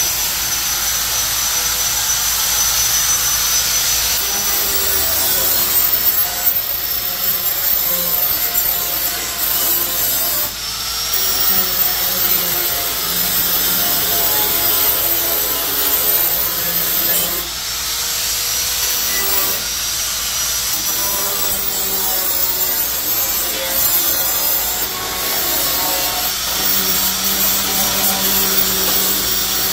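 Handheld electric grinder running against the cut edge of a sheet-metal hood opening: a steady abrasive grinding over a motor whine that shifts in pitch as the pressure changes, with a couple of brief lulls. It is smoothing the sharp cut edge.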